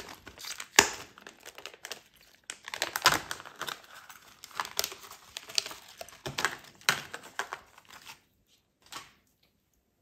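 Plastic packaging of a fishing lure being opened by hand: irregular crinkling and crackling with a sharp snap about a second in, stopping about eight seconds in.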